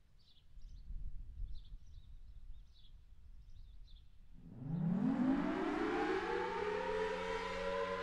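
Federal Signal Thunderbolt 1000T outdoor warning siren winding up for a full alert test. About four seconds in, its tone starts low, rises quickly and then settles into a steady high wail. Birds are chirping before it starts.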